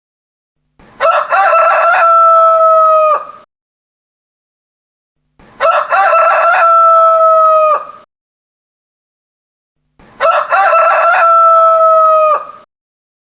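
A rooster crowing three times, about every four and a half seconds. Each crow is long, holds one steady pitch and drops away at the very end.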